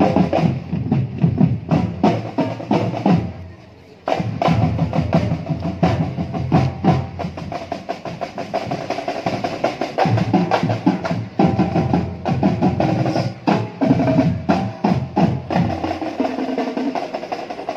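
Marching band playing: snare and bass drums with drum rolls under sustained brass chords. The music drops away briefly just before four seconds in, then comes back in full.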